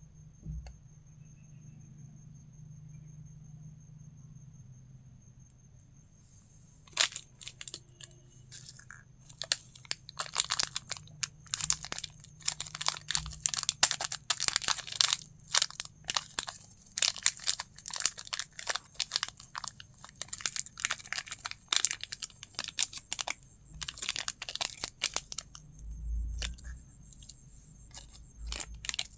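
Candy packaging being crinkled and torn open: nearly quiet for the first several seconds, then from about seven seconds in a dense run of irregular sharp crackles that goes on to the end.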